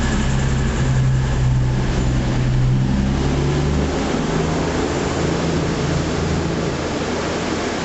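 CrossCountry Voyager diesel multiple unit moving along the platform, its underfloor diesel engines running steadily under the noise of the carriages passing. The engine note eases slightly about halfway through.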